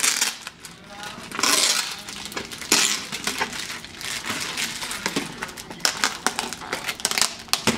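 Thin clear plastic film being peeled and pulled off a plastic meal tray, crinkling and rustling, with small clicks and knocks of the tray.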